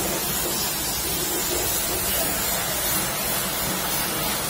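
High-pressure wash lance spraying a jet of water onto the side of a car to rinse it: a steady, even hiss.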